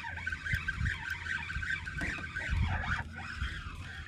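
Spinning reel's drag buzzing in a fast run of pulses as a hooked fish, taken for a good snook, pulls line against it; it fades out about three seconds in. A few low knocks come through underneath.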